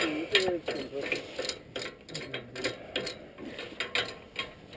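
Pigs grunting and squealing briefly in the first second, with irregular light clicks and rattles throughout.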